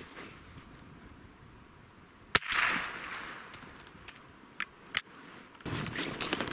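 A single sharp gunshot about two seconds in, with a short echo dying away after it. A few small clicks follow, then footsteps crunching in snow near the end.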